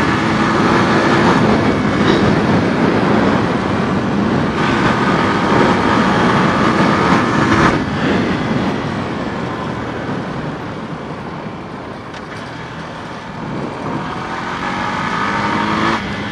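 Honda four-wheeler's engine running hard under throttle, easing off about eight seconds in, then revving up again with rising pitch near the end before dropping off sharply.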